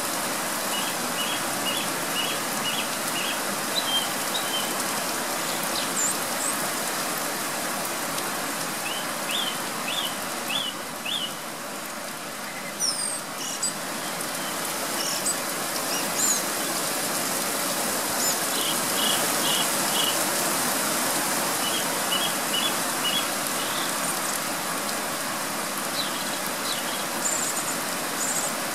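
Song thrush singing in heavy rain: short phrases of quick notes, each phrase repeated several times, over the steady hiss of pouring rain.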